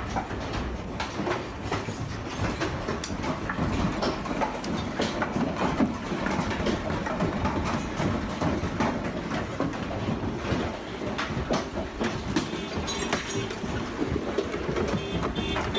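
Golf-ball-sized hail pelting down: a dense, continuous clatter of hailstones striking hard surfaces over a rushing roar of the storm.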